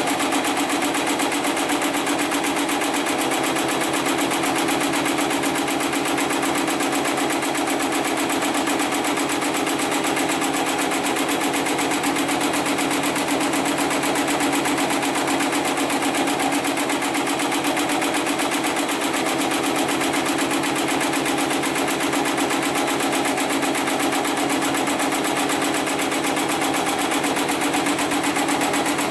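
HIGHTEX 75008 heavy-duty programmable pattern sewing machine running steadily, its needle stitching fast and evenly through layered red webbing strap held in the clamp frame.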